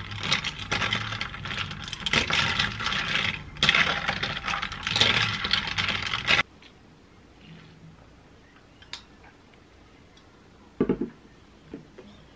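Ice cubes rattling and clinking against a tall drinking glass as an iced latte is stirred with a metal straw, a dense clatter that stops abruptly about six seconds in. Near the end, a single light knock.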